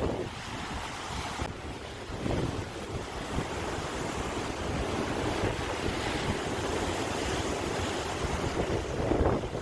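Ocean surf: waves washing and breaking continuously, with a louder wave surging near the end. Wind buffets the microphone underneath.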